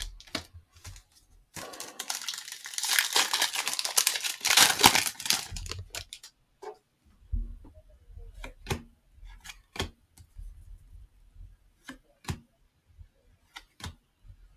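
A Panini Hoops trading card pack wrapper is torn open with crinkling for about four seconds, starting a couple of seconds in. Scattered light clicks and snaps of the cards being handled follow.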